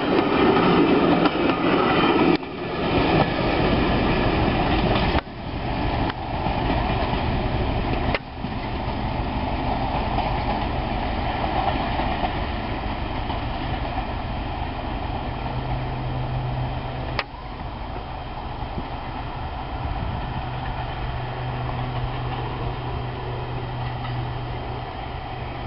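Green diesel multiple unit passing close, its wheels clattering over the rail joints, then running away and fading into the distance, leaving a low steady engine hum. A single sharp click about seventeen seconds in.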